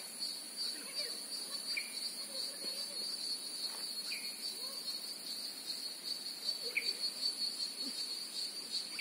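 Steady chorus of insects in tropical riverside forest, a continuous high-pitched buzz, with a few faint short chirps now and then.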